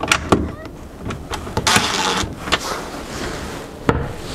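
Cordless drill-driver running in short spurts as it turns a cabinet hinge adjustment screw, with sharp clicks and knocks of the hinge and door, one near the end as the door is pushed shut.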